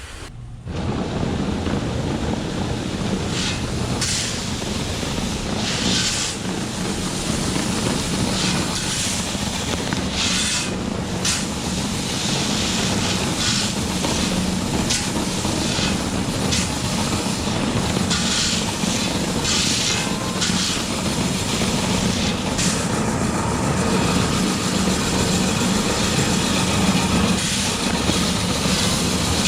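A large machine running steadily: a constant engine hum with frequent short rattles and clatters over it.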